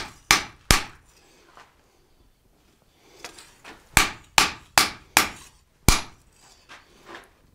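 Blacksmith's hand hammer striking a red-hot leaf-spring steel blade on the anvil face, each blow sharp with a short ring. Three quick blows open, then a pause of about three seconds with a couple of light taps, then a run of five blows at about two and a half a second, ending with two lighter ones.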